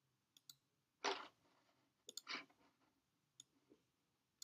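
Near silence broken by a few scattered soft clicks of a computer mouse and keyboard.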